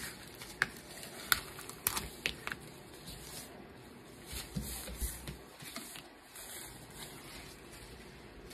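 Waste heat transfer vinyl being weeded, peeled and pulled up off its clear carrier sheet with a craft knife: a handful of sharp clicks in the first two and a half seconds, then softer crinkling and handling.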